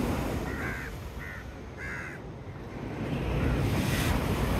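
Three short, harsh bird calls, like crow caws, over a steady low rumble that grows louder in the second half.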